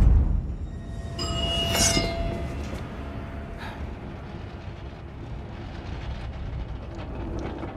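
Cinematic sound design: the tail of a deep boom fading, then a steady low rumble. About one to two seconds in, a shimmering, ringing swell rises over it.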